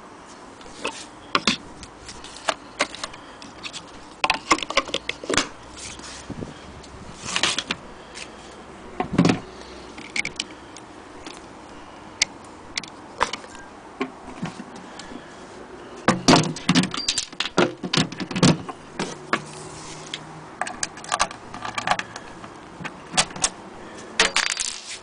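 Irregular metal clicks, rattles and knocks as the hand crank and metal fittings of an antique Singer 66K sewing machine and its wooden cabinet are handled, with a busier run of clatter a little past the middle.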